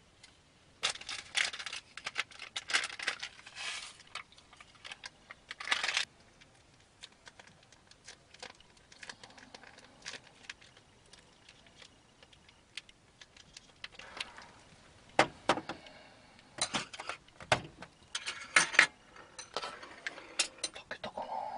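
Small hard objects being handled, with scattered clinks, clicks and rattles. They come in a busy run over the first six seconds, go quieter, then pick up again from about two-thirds of the way in.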